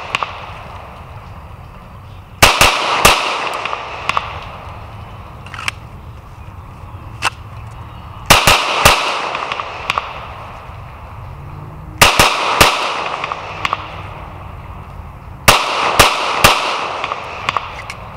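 Glock 19 Gen 4 MOS 9mm pistol firing 124-grain hollow-point rounds in four quick strings of two or three shots, a few seconds apart. Each shot cracks sharply and leaves a long echoing tail.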